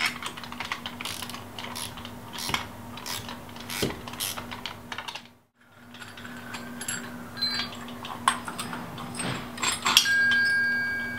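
Steel 13 mm wrenches clicking and clinking against a bolt head and nut as an adapter bolt is tightened into an aluminium mount plate. The sound drops out briefly about halfway. Near the end, a clink sets off a clear metallic ring.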